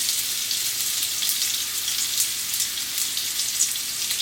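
Ginger frying in hot vegetable oil in a pan: a steady sizzle with small crackling pops.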